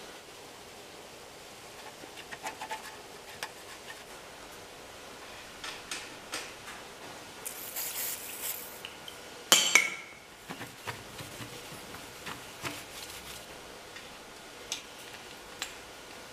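Light metallic taps and scrapes of a tool working inside an aluminium helicopter tail boom through an inspection hole. About halfway through, an aerosol lubricant can hisses for about a second as it sprays the tail-rotor shaft's polymer bushings, followed at once by a sharp metal clank, the loudest sound. A few clicks near the end as inspection hole caps are pressed back in.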